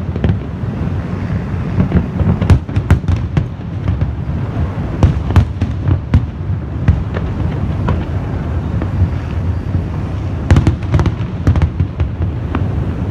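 Fireworks show: a steady low rumble of bursting shells, with many sharp bangs and crackles over it that come thickest about two, five and ten seconds in.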